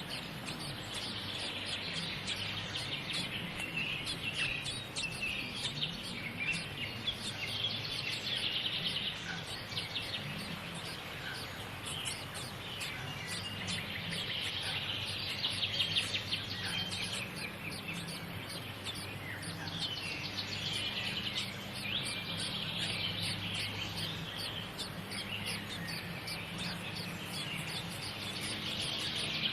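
Small birds chirping, in clusters of quick high chirps that come and go every few seconds, over a steady low background hum.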